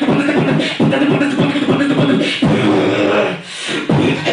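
Human beatboxing amplified through a handheld microphone: quick, rhythmic vocal kick and snare sounds over a hummed bass tone, with a brief drop in level about three and a half seconds in.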